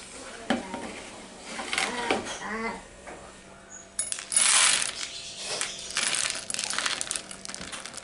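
Dry fish-feed pellets poured from a plastic container into a plastic bowl, a dense rattle of many small hard pellets hitting the bowl and a metal spoon, loudest just after it starts about four seconds in. Before it, a few clinks and a short wavering pitched sound.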